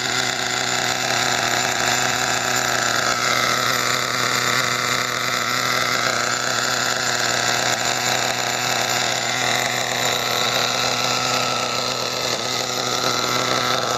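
Redcat Earthquake 3.5's .21 nitro engine idling steadily at a high idle, running rich on its factory break-in tune.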